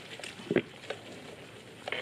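Water buffalo grazing in shallow floodwater: scattered soft clicks and rustles of cropping and moving through wet grass, with one louder thump a little over half a second in.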